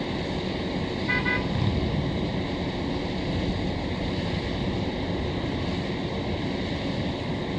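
Steady hum of road traffic, with a short vehicle-horn toot of a few quick pulses about a second in.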